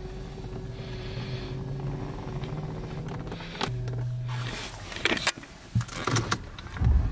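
Steady mechanical hum inside a just-started Mercedes-Benz car, which shifts pitch about three and a half seconds in, with a few sharp clicks and knocks near the end of it.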